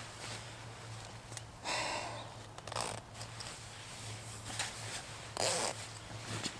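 Three short rustling, scraping sounds, the loudest near the end, over a steady low hum.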